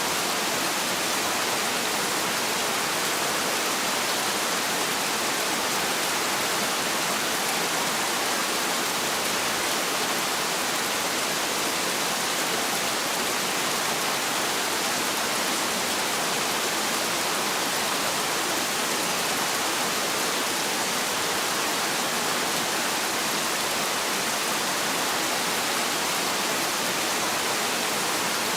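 Heavy rain falling steadily as an even, unbroken hiss, with no thunder.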